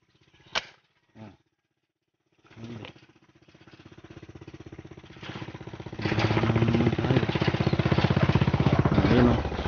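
A single sharp airgun shot about half a second in, followed by a smaller pop. From about two and a half seconds a small engine runs with a fast, even beat, growing louder and staying loud from about six seconds.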